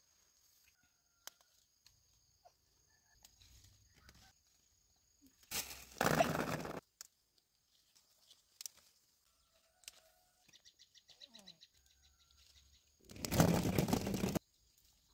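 Small green jujubes tumbling into a woven basket, heard as two loud rustling rushes about six and thirteen seconds in. Between them a faint steady high tone and a short bird trill.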